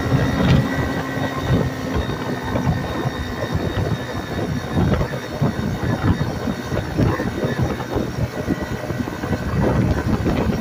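A Sikk Ped motorized bicycle's small gas engine, a clone of a Honda 70, running steadily while the bike rides along the road, with road and air noise mixed in.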